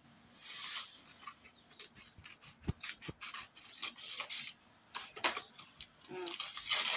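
Scissors snipping through a stiff paper courier bag, with the kraft paper crinkling and rustling in many short crackles as it is cut and then pulled open.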